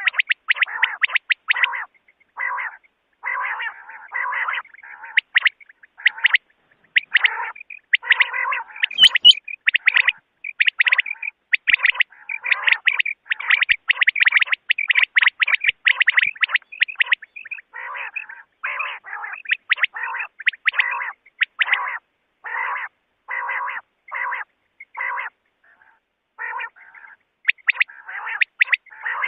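Recorded common quail calls played over and over as a hunting lure: short, sharp calls repeated a few times a second in clusters with brief pauses, with one click about nine seconds in.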